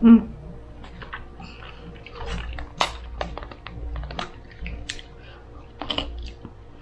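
Close-up chewing and mouth sounds of someone eating: irregular wet clicks and crunches. A short loud low thump comes right at the start, and quiet film music and dialogue play underneath.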